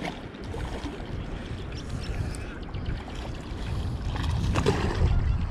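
Low rumble of wind buffeting the microphone, with water moving and lapping close by, growing louder toward the end; a few faint clicks.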